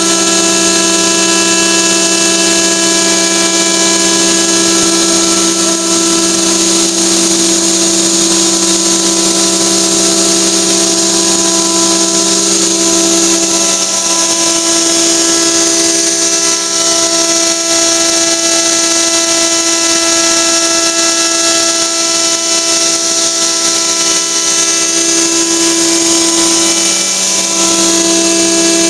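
MultiCam MG Series CNC router cutting sheet material, its rebuilt Euro spindle giving a steady whine with several held tones over a strong rushing hiss from the cutting and dust extraction. The main tone dips briefly a couple of times.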